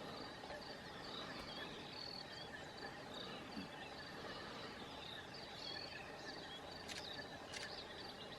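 Outdoor ambience: a steady faint hiss under repeated short high chirps and calls throughout, with two sharp clicks about seven seconds in.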